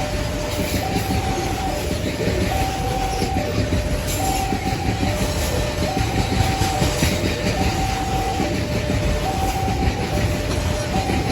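Babaranjang long coal train rolling past with a steady low rumble and wheel clatter. Over it, a warning signal sounds two tones that alternate high and low, each about a second long.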